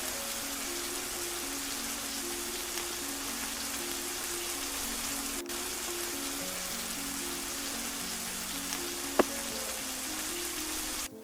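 Steady rain hiss with a slow background music melody over it. One sharp knock comes about nine seconds in. Near the end the rain cuts off abruptly while the music carries on.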